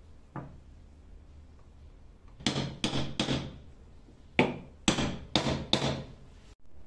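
Small hammer striking a wooden block held against a pendant motor's metal housing: a light knock about half a second in, then seven sharp taps, three in quick succession and then four more.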